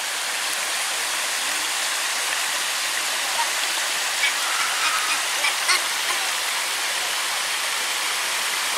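Small waterfall pouring steadily into a rock pool: a constant, even noise of falling, splashing water.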